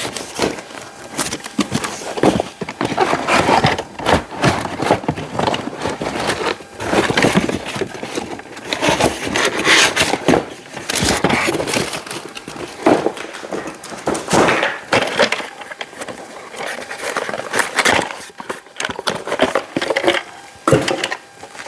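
Irregular crackling, rustling and clattering from vacuum packaging and parts being unwrapped and handled, with no motor running.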